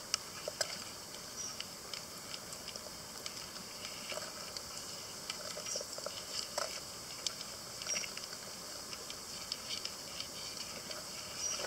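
Small irregular clicks and taps of a signal crayfish's legs and claws on a white tray, over a steady hiss.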